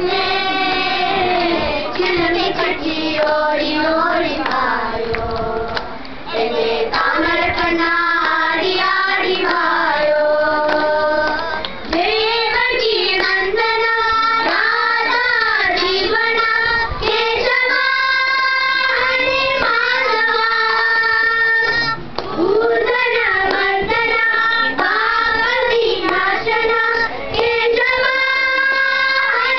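Children singing a song together, with long held notes that bend and slide in pitch, and a few short breaks between phrases.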